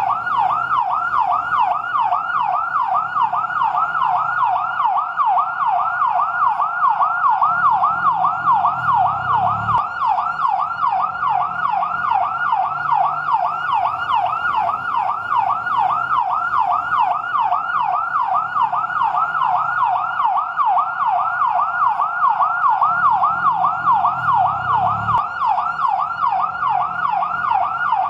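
Fire truck siren on its yelp setting: a rapid, unbroken warble of pitch sweeps, about three a second. Underneath, a fainter low rumble swells and then cuts off suddenly twice.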